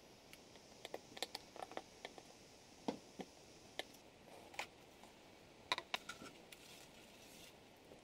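Scattered light clicks and taps of small hand tools and metal parts being handled: pliers, a soldering iron and wire at work on an LED board. The sharpest clicks come a little before three seconds and near six seconds.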